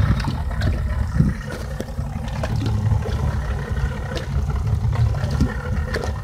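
Small fishing boat's motor running steadily under a low rumble, with a few faint clicks scattered through.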